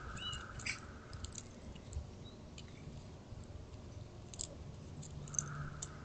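Eastern gray squirrel cracking and chewing sunflower seeds close to the microphone: a run of small, irregular crunching clicks.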